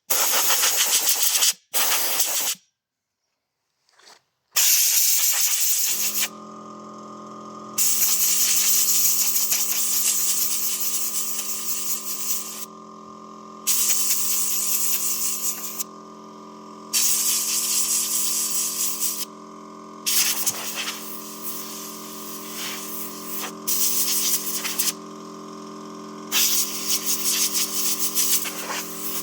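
Compressed-air blow gun blasting a construction vacuum's filter in long hissing bursts with short pauses between them. About six seconds in, the air compressor starts and keeps running with a steady hum under the blasts.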